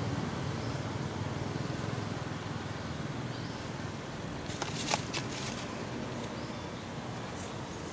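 Steady low outdoor background rumble, with a quick cluster of a few sharp clicks about five seconds in.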